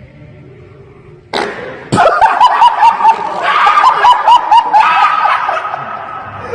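A sudden loud sound about a second and a half in, then high-pitched laughter in quick, repeated bursts.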